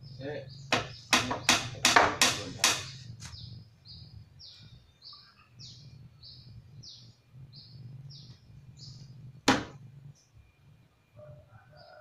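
Hammer blows on a wooden door frame: a quick run of about eight blows in the first three seconds, then one more single blow near ten seconds. Between them a bird calls over and over with short falling notes, about two a second.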